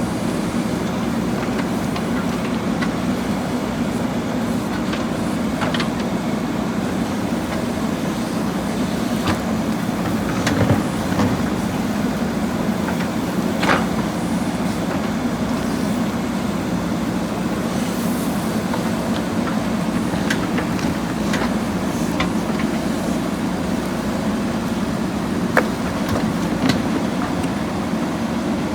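JCB backhoe loader's diesel engine running steadily at working speed, with scattered sharp knocks and clanks over it.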